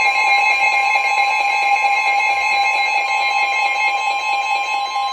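NOAA Weather Radio warning alert tone: a loud, steady two-pitch tone with a harsh, distorted edge and static underneath, heard over the radio.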